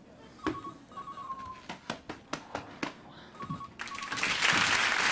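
Electronic office telephone trilling in two short double rings, with a few light knocks in between. Studio audience applause swells near the end and is the loudest sound.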